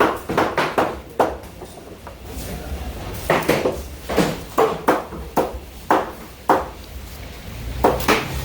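A knife cutting up a skipjack tuna on a board: a dozen or so sharp, irregularly spaced knocks and strokes, some with a short metallic ring.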